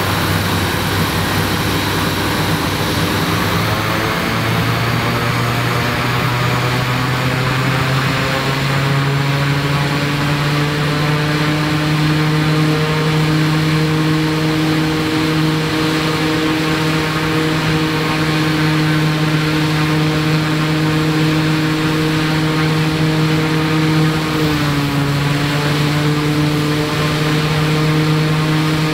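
Cessna C208 Caravan's PT6A turboprop engine running with its new five-bladed propeller turning. The propeller hum climbs steadily in pitch over the first ten seconds or so, then holds steady, with a brief dip in pitch about 24 seconds in.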